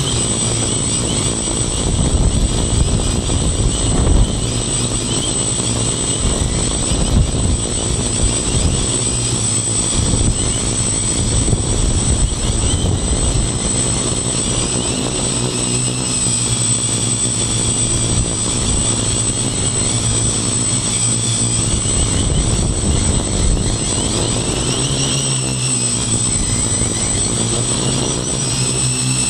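Homemade quadcopter's four electric motors and propellers buzzing steadily in flight, heard from a phone strapped to its frame. A constant high whine sits over a rumbling wash, and the pitch shifts up and down as the throttle changes, notably around the middle and near the end.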